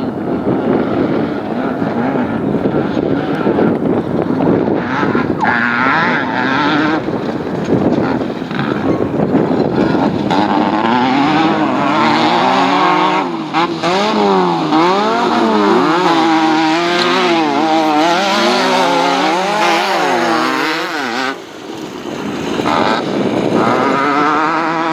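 Air-cooled VW flat-four engine of a Baja bug off-road race car running hard, mixed with a rushing noise at first. Later its revs rise and fall about once a second, dip briefly near the end, then climb again.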